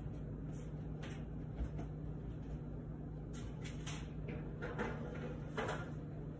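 A baking pan going into an oven: short knocks and metal clatters of the pan and the oven door in the second half, over a steady low hum.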